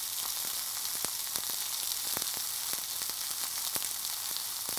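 Pork sausage sizzling on a charcoal grill grate: a steady hiss with frequent small crackling pops.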